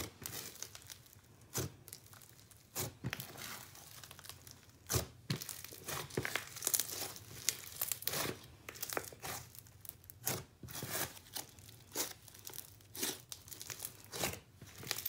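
Red snow slime full of hard plastic snow being squeezed, stretched and pressed by hand, giving irregular sizzly crackles and pops, with a few louder pops scattered through.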